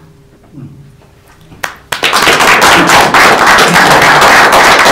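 Audience applauding: after a quiet moment, one clap sounds about a second and a half in, then dense, loud clapping from many hands breaks out about two seconds in and keeps going.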